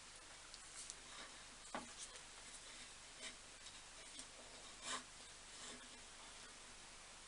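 Near silence with a few faint, short taps and rubs of parts being handled, the clearest a little under two seconds in and about five seconds in.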